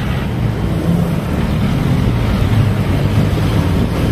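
Motorcycle engine running at low speed in traffic, with wind rushing over the microphone.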